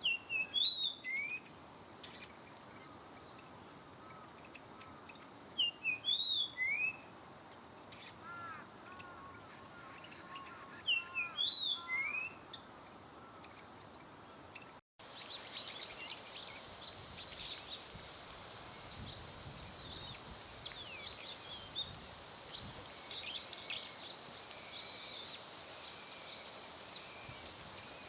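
Birds calling: three loud, sweeping call phrases about five seconds apart, with softer repeated notes between them. After a sudden cut comes a steady chorus of high, thin trills, typical of a flock of Bohemian waxwings.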